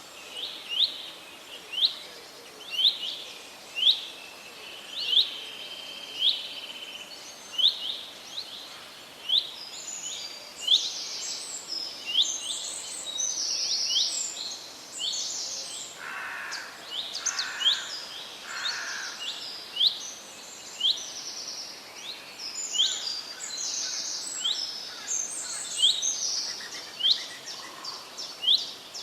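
Birds singing: one bird repeats a short rising chirp about once a second throughout. About a third of the way in a second bird joins with quick, higher twittering, and a few lower notes come near the middle. Under them runs a steady hiss of background noise.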